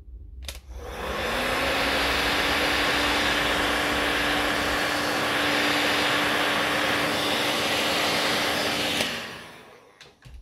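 Electric heat gun switched on with a click, its fan spinning up to a steady loud blowing hum while it shrinks heat-shrink tubing over a wire joint. It is switched off about nine seconds in and winds down.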